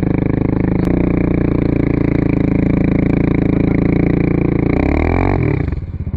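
Pit bike's small single-cylinder engine running steadily, close up, with a sharp click about a second in. Near the end the engine note drops and stutters unevenly for about a second, then steadies again.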